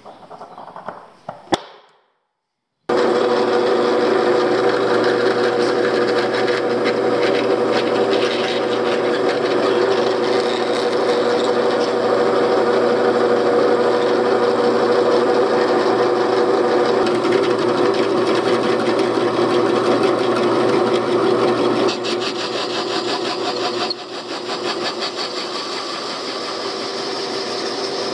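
Drill press running and boring holes through 7/8-inch Baltic birch plywood with a hole saw: a steady motor tone under the noise of the cutter chewing wood. It starts abruptly about three seconds in, after a few light knocks of hands handling the wood, and its level dips slightly twice near the end.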